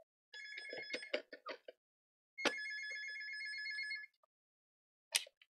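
Telephone ringing, two rings about a second and a half long each, the second starting about two seconds in; each ring is a steady, high electronic tone.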